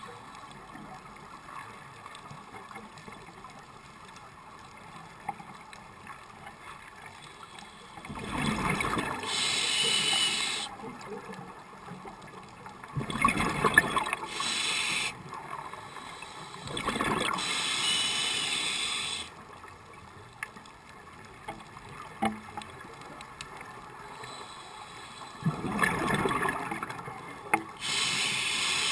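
Scuba diver breathing through a regulator underwater: four breaths, each a rush of bubbles followed by a higher hiss from the regulator, with a steady faint hiss between breaths.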